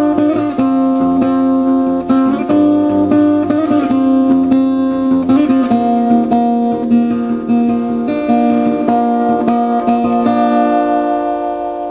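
Background music of plucked acoustic guitar with ringing, sustained notes, fading out near the end.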